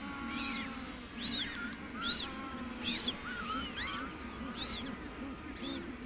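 Magellanic penguin chicks peeping as they beg to be fed by a parent: thin, high calls that each rise and fall, coming about once or twice a second.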